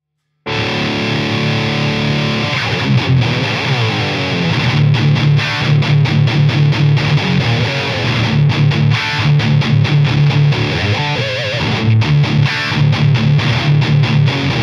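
Heavily distorted electric guitar, a Gibson Les Paul Studio played through a Mesa Mini Rectifier 25 valve amp head into a 1x12 cabinet. It starts about half a second in with a held chord ringing for about two seconds, then goes into a rhythmic metal riff of short, chugging low-string strokes with brief stops.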